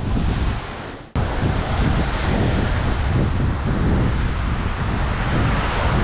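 Surf breaking on a sandy beach, with heavy wind noise rumbling on the microphone. About a second in the sound fades briefly, then cuts back in abruptly.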